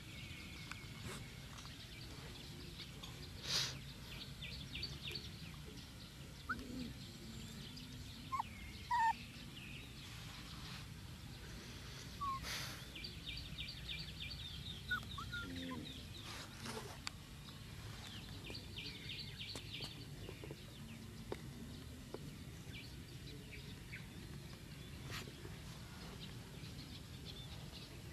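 Outdoor ambience of birds: short chirps here and there and several rapid high trills lasting a second or two, over a steady low background noise, with a few sharp clicks.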